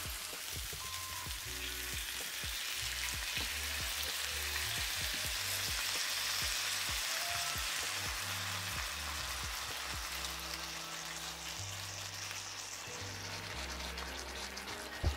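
Bone-in pork chops sizzling and spitting in a hot cast iron skillet as a garlic maple glaze is spooned over them, with light clicks in the first half. The sizzle swells in the middle and eases off near the end.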